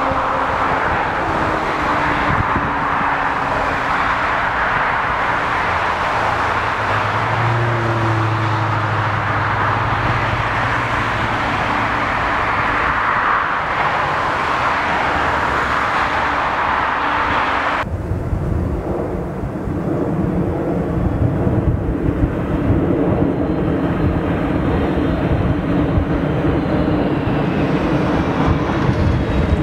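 Airbus A340-600's four jet engines at takeoff thrust as it rolls down the runway and climbs away: a steady, loud rushing noise with low tones that glide slowly. About 18 seconds in it cuts abruptly to a deeper rumbling jet noise, a Boeing 747-8 freighter on the runway.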